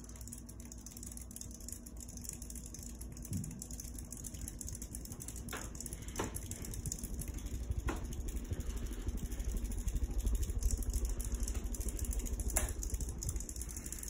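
Harbor Breeze Builder's Best ceiling fan running at speed: a steady low rumble of motor and air moving from the spinning blades, with a few light ticks.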